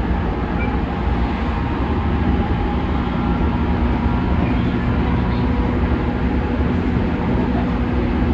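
Running noise heard inside a JR Central 211 series 5000 subseries electric commuter car as it travels along the line: a steady rumble with a few steady tones over it.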